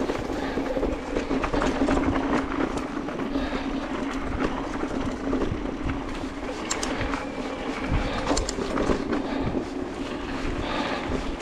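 Electric mountain bike rolling down a rough dirt trail: tyre noise with a constant rattle of small clicks and knocks from the bike over the bumps, and a steady low hum.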